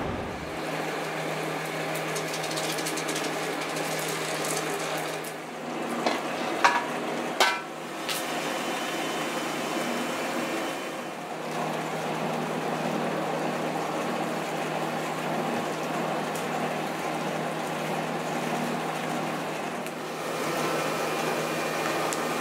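Two-roll rubber mill running with a steady hum and hiss as rubber compound for tennis ball cores is worked between its rollers. A few sharp clanks come about six to seven seconds in.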